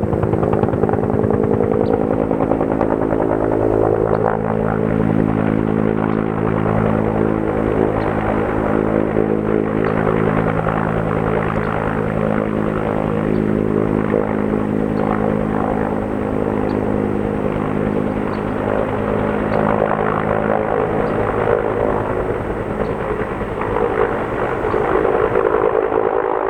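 Bell 214 helicopter hovering to fill a water bucket, its two-bladed main rotor beating with a fast, steady pulse over the turbine's steady running.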